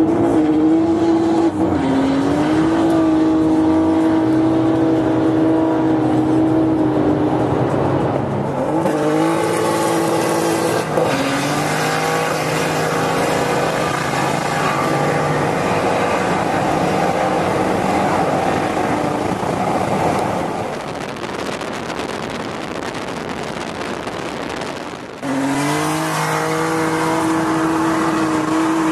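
BMW E30's engine held at high revs while the car drifts, with tyre squeal loudest through the middle. Near the end the revs drop briefly and then climb again.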